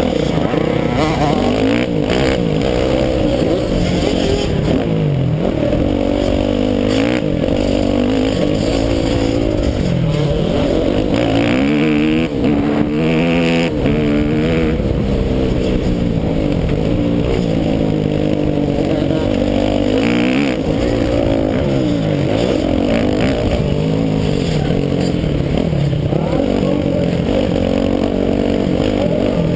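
Motocross bike engine heard close from a camera mounted on the bike, revving hard under race load and repeatedly rising and falling in pitch through the gears and off the throttle.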